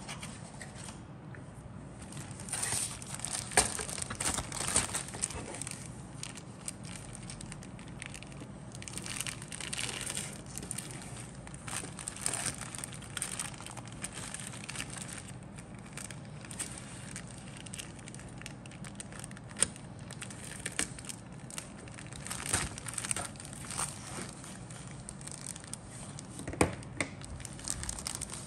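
Clear plastic bag crinkling and crackling in irregular bursts as it is handled, holding a sprue of grey plastic model-kit parts.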